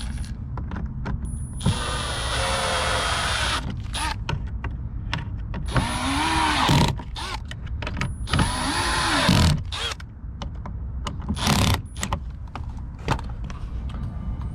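Car electric window motor running in three short runs, the longest first, each with a whine that rises and falls as the glass moves, and clicks between the runs.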